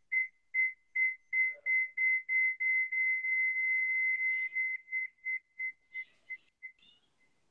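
Audio feedback on a live video call: a high whistling tone pulsing about three times a second, running together into a steady whine for a couple of seconds, then breaking up into pulses again and fading out near the end. The hosts put the echo down to two of them calling from the same house.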